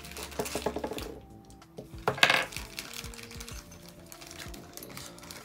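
Background music with a few light metallic clinks in the first second and a short, louder rattle about two seconds in, from hand tools and small metal parts being picked up off-camera.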